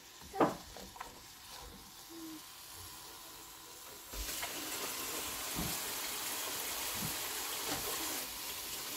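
Sliced carrots, bell peppers and onions sizzling in oil and butter in a pan on high heat, the sizzle turning into a louder steady hiss about four seconds in. A sharp knock near the start.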